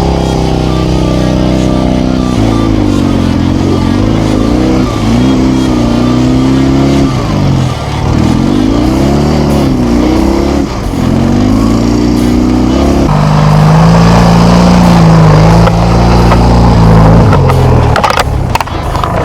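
Motorcycle engine revving, its pitch rising and falling again and again, then running at a steadier, higher speed from about thirteen seconds in.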